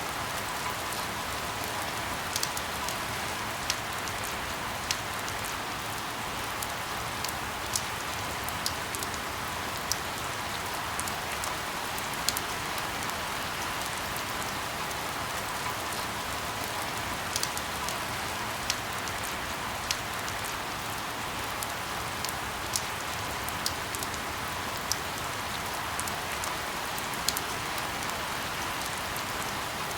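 Steady rain hiss with irregular sharp ticks, about one every second or two, over it.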